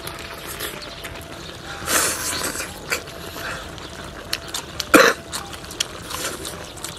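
A man eating close to the microphone: slurping and sucking at saucy pieces of bullfrog, with scattered small clicks of chopsticks and lips, and one short, loud burst from the mouth or throat about five seconds in.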